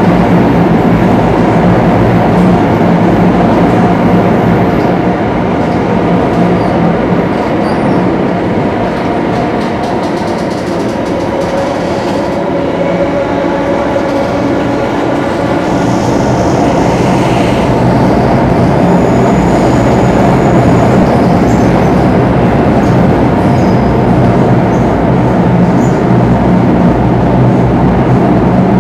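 Singapore MRT Circle Line train running through a tunnel, heard from inside the carriage by the doors: a steady, loud rumble of wheels and running gear under a low hum. The noise eases a little about midway, then builds again.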